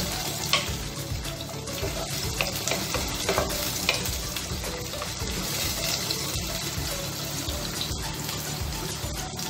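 Sliced onion, garlic, ginger and green chilli sizzling in hot oil in a nonstick saucepan, with a steady frying hiss. A wooden spatula stirring the pan scrapes and knocks against it now and then.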